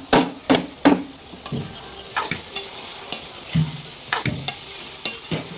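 A ladle stirring diced bottle gourd in a metal karahi, knocking and scraping against the pan in a quick run at first, then now and then, over a low sizzle of frying.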